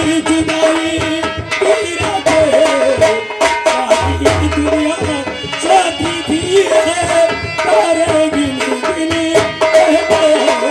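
Indian folk stage music: tabla played briskly under a wavering, held melody line.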